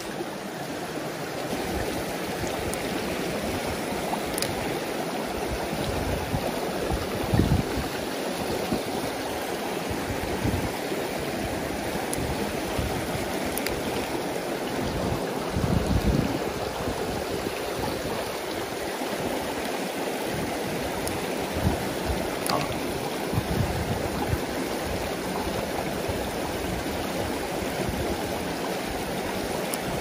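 Shallow mountain stream rushing and splashing over rocks in a steady wash of water noise, with a couple of brief low bumps partway through.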